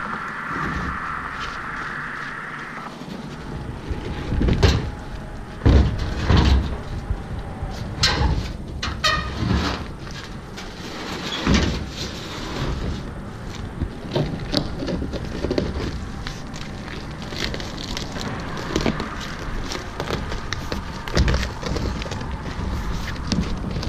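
Plastic hull of an Ultraskiff 360 round boat being rolled on its edge over a guardrail and along a gravel path, knocking, thumping and scraping irregularly. The loudest thumps come about five and six seconds in.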